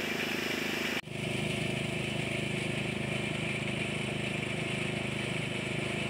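Small motorized rice thresher running steadily, its engine and spinning drum giving an even hum, with a hiss as rice stalks are fed against the drum. The sound drops out for an instant about a second in, then carries on.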